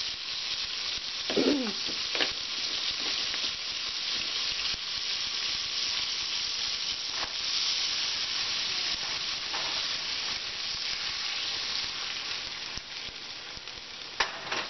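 Salmon fillet, put in the pan straight from frozen, sizzling steadily in oil in a frying pan. About a second and a half in there is a brief falling tone, and a few light clicks occur.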